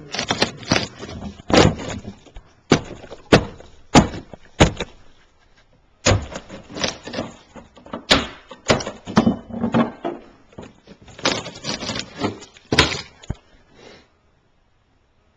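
Sink-base cabinet being demolished: repeated sharp knocks and bangs with clattering and scraping of wood, then the sound stops abruptly near the end.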